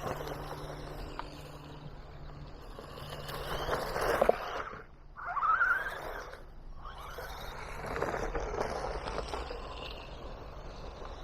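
Haiboxing Protector RC car driving over rough ground, its electric motor whining and surging as the throttle changes, with a rising whine about five seconds in as it speeds up.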